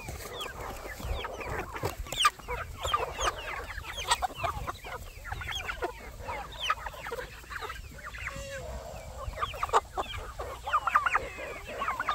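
A flock of chickens clucking and calling over one another, with many short calls overlapping and a few sharper squawks standing out.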